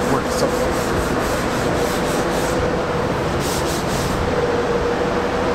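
Repeated rubbing strokes of a hand working a car's door panel, like hand sanding, in two runs with a short pause between. Underneath is a steady shop hum.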